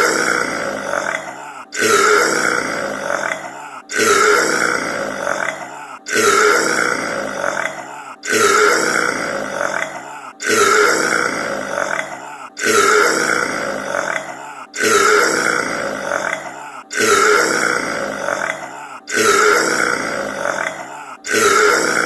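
A man's long burp, the same one looped over and over about every two seconds, each starting suddenly and trailing off.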